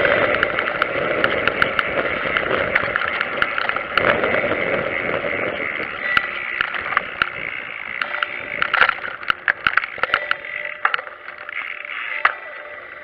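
Road and wind noise from a pedal trike riding over a city street, picked up by its mounted camera, with frequent sharp clicks and rattles. The noise fades gradually toward the end.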